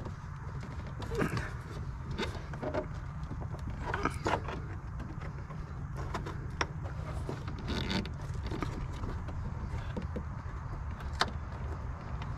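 Hands working in the plastic front-end trim of a 2010 Chevy Traverse near the headlight housing: scattered light clicks, knocks and rattles of plastic parts, over a steady low rumble.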